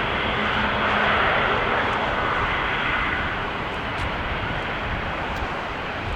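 Jet airliner engines rushing as the aircraft passes, swelling about a second in and then slowly fading.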